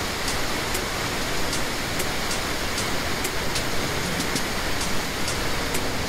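Steady rush of a waterfall, with short, sharp high ticks scattered irregularly through it.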